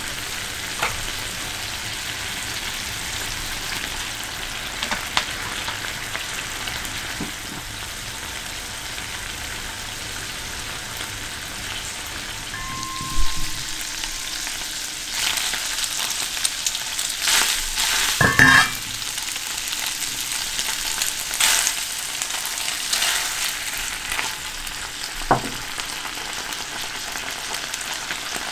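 Canned mackerel and garlic sizzling in oil in a frying pan: a steady frying hiss with tongs clicking against the pan now and then, and a louder stretch of clatter and sizzle about halfway through.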